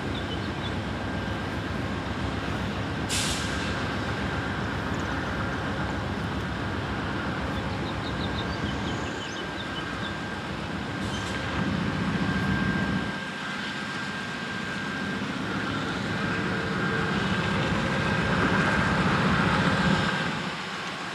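Amtrak GE Genesis diesel locomotives idling at a station stop: a steady engine rumble with a constant high whine over it. A short hiss of air comes about three seconds in, and the engine note swells twice, briefly after twelve seconds and for a couple of seconds near the end.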